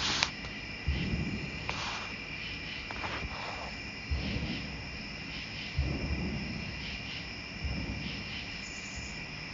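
Steady evening chorus of insects, with several layered high continuous trills. About four low, dull rumbling swells rise and fade beneath it, roughly every one to two seconds; their source is unclear.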